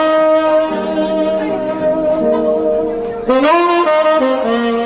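Jazz quartet playing, a lead melody instrument holding long notes over other parts, then sliding up into a new sustained note about three seconds in.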